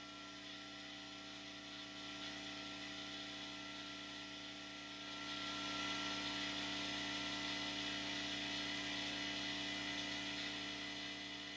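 Electric air compressor running with a steady, many-toned hum over a hiss, getting louder about five seconds in.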